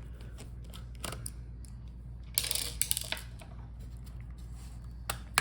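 A Dell Latitude 5420's battery pack and plastic chassis are handled by hand as the battery is lifted out. Light clicks are scattered through it, a brief scraping slide comes a little past the middle, and a sharp click is the loudest sound, just before the end.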